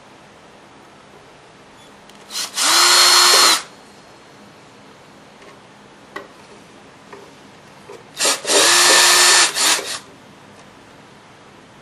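Cordless drill drilling out holes in a side-view mirror housing, run in two bursts about six seconds apart: one of about a second, then one of about a second and a half. Each time the motor's pitch rises as it spins up and drops as it stops, and the second burst is stopped and restarted briefly near its end.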